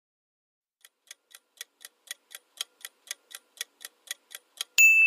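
Countdown timer sound effect: clock-like ticks about four a second, getting louder, ending near the end in a sudden bright ding with a held high ring that signals time is up.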